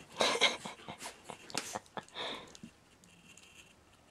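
A Jack Russell terrier rolling and wriggling on her back on a carpet, making a run of short scuffling noises over the first two and a half seconds.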